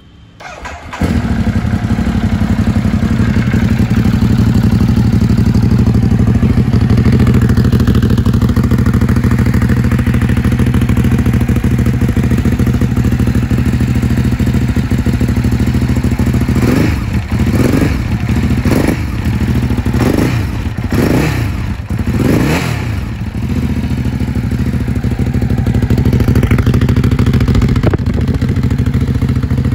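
Ducati Hypermotard 939's L-twin engine, breathing through an aftermarket SC-Project carbon exhaust, starts about a second in and settles into a loud, steady idle. Midway it is revved in a string of about six quick throttle blips, then returns to idle.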